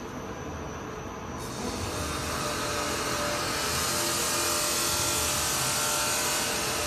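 Carousel turning on its drive mechanism: a steady mechanical running noise with a hiss that swells and grows louder about a second and a half in.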